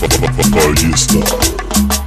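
Cumbia sonidera music playing: a dense, even percussion beat over a bass line.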